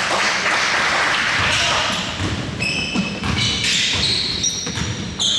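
Indoor basketball game: the ball thudding on the court, short high sneaker squeaks, and players' voices.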